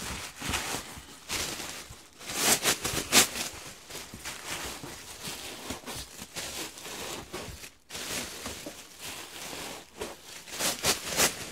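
Bubble wrap being crumpled and shoved into a cardboard box: irregular rustling and crinkling, with louder bursts about two to three seconds in and again near the end.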